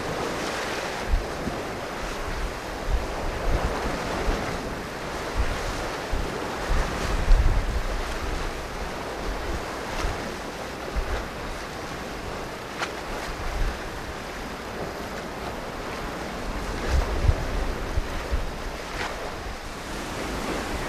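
Sea waves washing onto a rocky shore, swelling and easing, with gusts of wind rumbling on the microphone.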